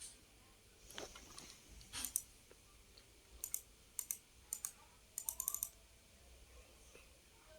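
Faint keystrokes on a computer keyboard: a few separate taps, then quick runs of several keys between about three and a half and six seconds in.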